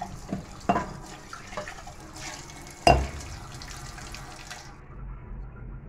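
Tap water running and splashing into a sink while a steel drinking glass is rinsed under the stream, with a sharp knock about three seconds in.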